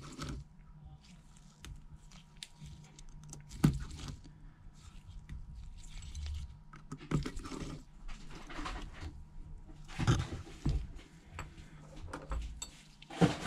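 Faint, irregular small clicks and light scrapes of precision hand tools and tiny phone parts being handled: a screwdriver backing out the small bracket screws, then the iPhone XR screen assembly being lifted and moved, with one sharper click about a third of the way in.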